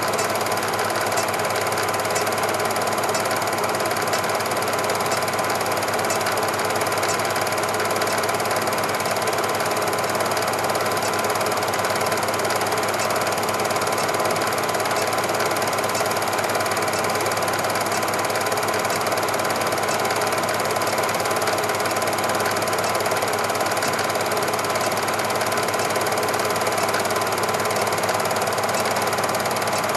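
Cine film projector running: a fast, even mechanical clatter with a steady whine, unchanged through the whole stretch.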